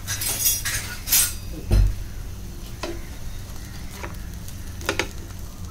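Wooden spatula stirring and scraping chopped onion, tomato, garlic and cashews around a frying pan of hot oil, with a light sizzle. The loudest sound is a single dull knock about two seconds in.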